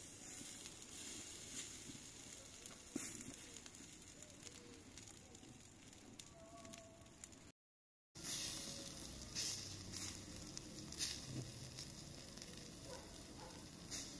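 Minced-meat koobideh kebabs on flat metal skewers sizzling over hot charcoal, with scattered crackles and pops from the coals. The sound breaks off for a moment about halfway, then comes back a little louder.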